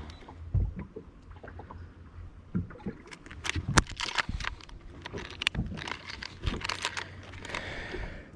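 Irregular clicks, knocks and rattles of handling in a fishing boat as a freshly landed largemouth bass is dealt with before weighing, over a faint low steady hum.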